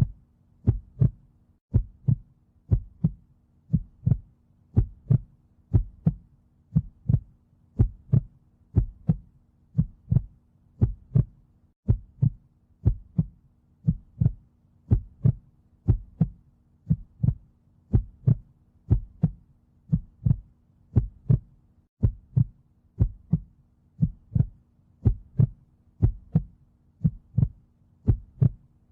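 Heartbeat sound in a steady, even rhythm: a double thump (lub-dub) about once a second, over a faint steady low hum.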